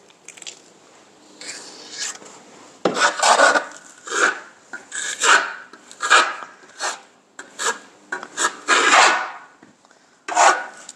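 Steel trowel spreading thick rock-texture plaster paste on a wall: a series of short scraping strokes, about one a second, starting about three seconds in. It is the first thick coat of the texture going on.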